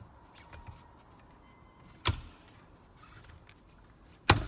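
Small ticks, then two sharp clacks as the tricycle's push-handlebar parts are handled and knocked together: one about two seconds in and a louder one near the end.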